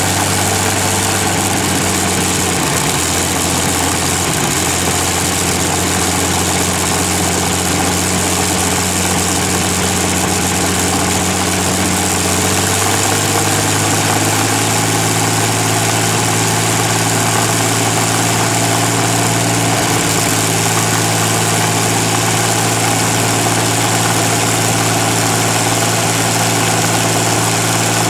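Rolls-Royce Merlin 27-litre V12 aero engine running at a steady speed through its short open exhaust stubs while it turns its propeller. The engine note shifts slightly about halfway through.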